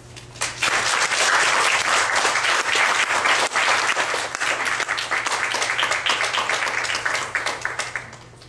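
Audience applauding after a violin and piano piece, starting about half a second in and dying away near the end.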